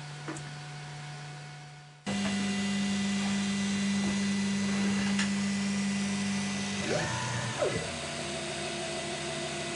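Cetus 3D printer's stepper motors running as it prints. A quieter steady hum cuts out abruptly about two seconds in, followed by a louder steady motor tone, with whines that rise and fall as the head moves about two-thirds of the way in.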